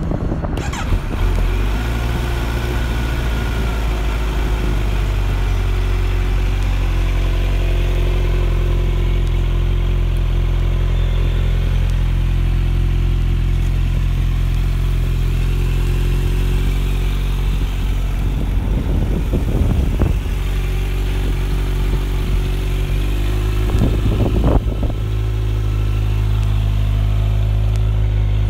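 2019 Kawasaki Z900's inline-four engine running through a GP S1 exhaust, settling into a steady idle about a second in. Twice in the later part it is briefly blipped, with short revs that drop straight back to idle.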